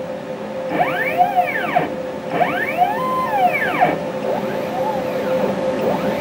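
NextWave Shark CNC stepper motors whining as the machine is jogged from the pendant. Each short move makes a rise, a brief hold, then a fall in pitch, about four times, over a steady hum.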